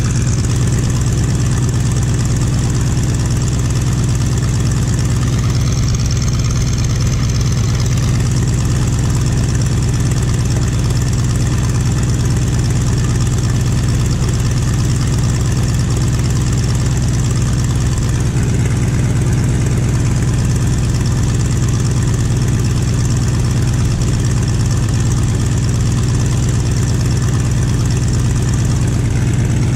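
Boeing Stearman biplane's radial engine and propeller running steadily: a constant low drone with a dense rushing noise over it.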